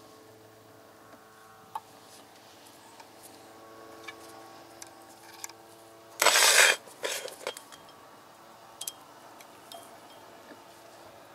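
Metal clinks and knocks from the steel parts of an oil friction test rig being handled as its threaded lever arm and weight plate are fitted, with one loud scraping clatter lasting about half a second, about six seconds in.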